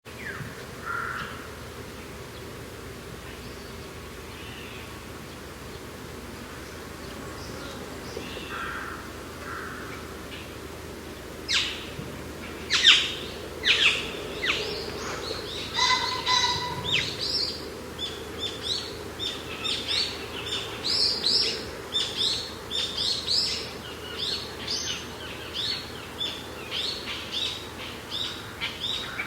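Birds chirping over a steady low background noise: a few faint calls at first, then loud sharp chirps from about twelve seconds in, turning into a rapid run of repeated chirps, several a second, for the rest of the time.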